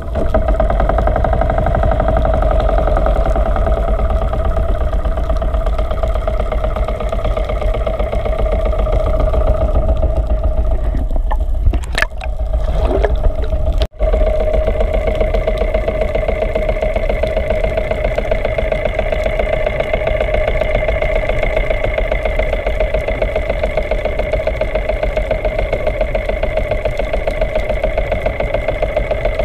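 Steady drone of a running motor engine heard underwater, with a fine rapid pulsing and a brief break about halfway through.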